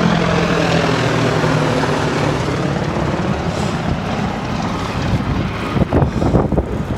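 Military attack helicopter flying low overhead, its rotor and engine noise loud at first and gradually fading as it moves away.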